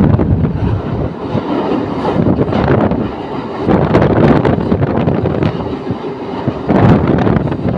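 Steady rumble of a moving vehicle, swelling and easing, with wind on the microphone.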